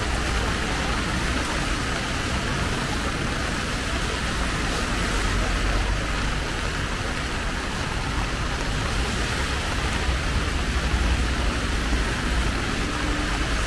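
Heavy rain with large drops pattering on an umbrella, a steady dense hiss, over a low rumble.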